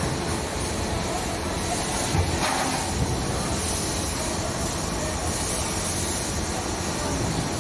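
Steady workshop machine noise with a hiss on top, from an automated fabrication machine slowly turning a large steel cylinder.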